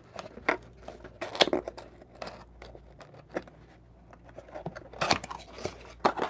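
Small cardboard box flaps being pried open and handled, with rustling of paper and cardboard packing. Short scrapes and rustles come in scattered bursts, louder about a second and a half in and again about five seconds in.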